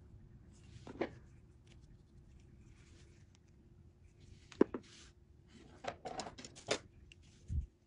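Small metal clicks and short rustles of fingers as a small safety pin is worked between the fingers, its clasp clicking, with a sharp click about halfway through and a quick run of clicks after it; a soft thump near the end.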